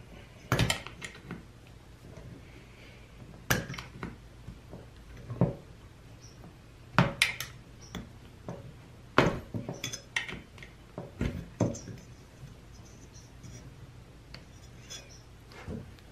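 A metal hand tool and small parts clicking and knocking against the plastic and metal housing of a chainsaw being taken apart. The sharp clicks come scattered, a few seconds apart.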